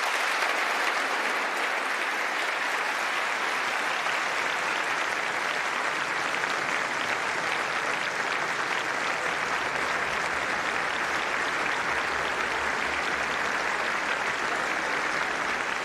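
Members of Congress applauding: a long, steady round of clapping from a large audience.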